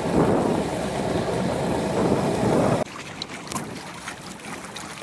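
Wind buffeting the microphone on a small sailboat under way, a loud choppy rumble. It cuts off suddenly about three seconds in, leaving a much quieter background with faint light ticks.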